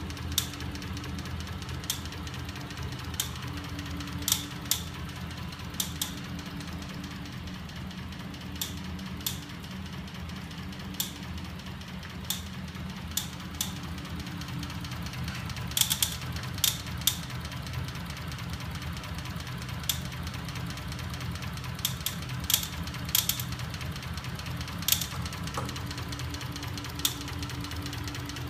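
A home-built magnetic crankshaft machine runs with a steady low hum from its small 12 V electric motors. Sharp clicks and knocks from the moving linkages come at irregular intervals, several of them in quick clusters.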